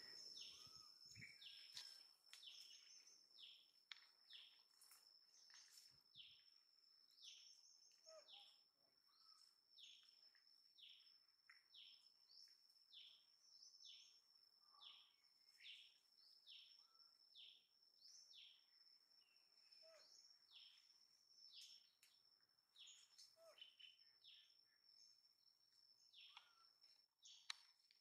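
Faint bird calls: a long run of short whistled notes, each falling in pitch, a little more than one a second, over a steady high-pitched whine.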